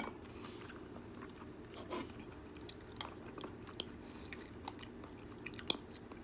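A sharp clink of cutlery against the plate at the very start, then quiet chewing of a bite of steak with soft scattered mouth clicks.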